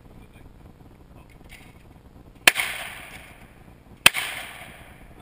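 Two shots from a double-barrelled shotgun, about a second and a half apart, each a sharp bang followed by a fading echo.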